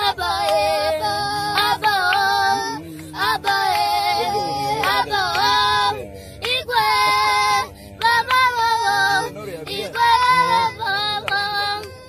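Young boys singing a song in Lingala with no instruments, in sung phrases separated by short pauses for breath.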